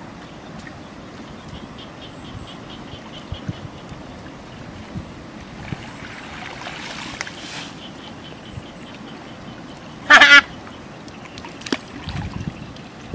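Shallow muddy water sloshing and splashing as hands pull weeds and sticks out of a small channel, with a louder splash a little past halfway. About ten seconds in, a short, very loud call cuts across it.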